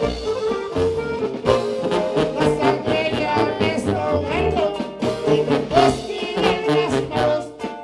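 Live norteño music with tuba: a bajo sexto strumming chords, a button accordion playing the melody, and a sousaphone pumping a steady bass line.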